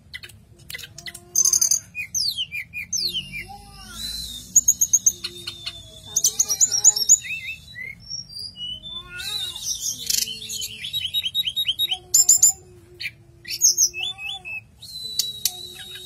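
Caged tledekan gunung (hill blue flycatcher) singing a long, varied song of rapid whistles, trills and chattering notes in quick phrases with brief pauses. A steady low hum runs underneath.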